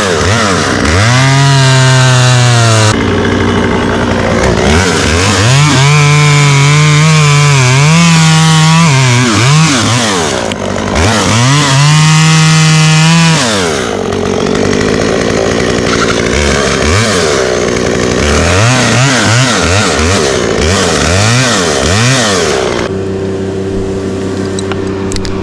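Gas chainsaw cutting into oak, revving up again and again and holding high revs for a second or two before dropping back. Near the end it settles to a steadier, lower note.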